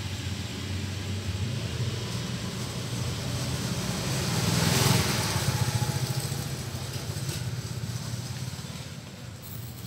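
Meiji 2 HP air compressor running, a steady throbbing low hum that swells louder about five seconds in and then eases off.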